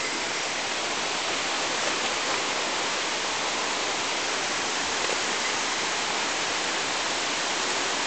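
Steady rush of a fast mountain river running over rocks in whitewater rapids, a constant full hiss with no distinct events.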